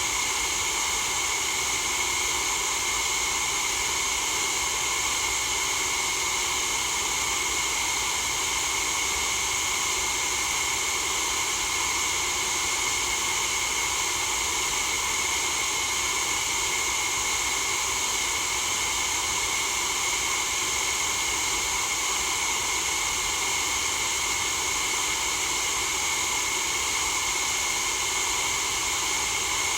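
Steady white noise: an even, unbroken hiss that is bright and strongest in the treble, with no change in level.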